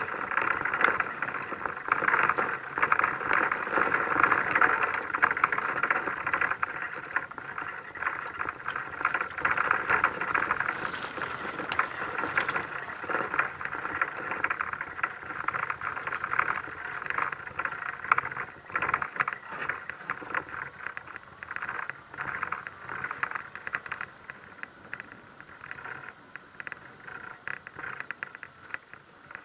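A 4WD driving off-road over sand, gravel and a dirt track, heard from a camera mounted on the vehicle: a dense, uneven rattle and crackle from the mount and the tyres on loose ground. It grows quieter in the second half.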